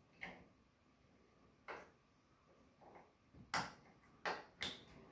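Light plastic clicks and taps, about six spread over the few seconds, as a 4-pin cable connector is handled, pushed into its socket and clipped in place on the back panel of a 3D printer.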